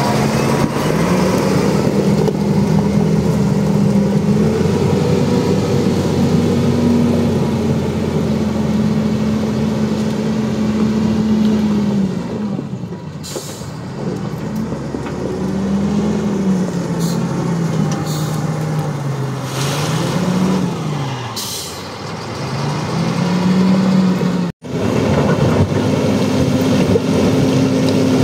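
Diesel engine of an FL958G wheel loader working, its revs rising and falling again and again as it pushes and lifts rock and dirt. A couple of short hisses come through in the middle, and the sound cuts out for an instant about three-quarters of the way through.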